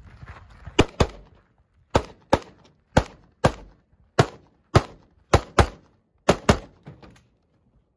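About a dozen gunshots from a long gun, fired mostly in quick pairs (double taps) roughly half a second to a second apart, stopping about seven seconds in.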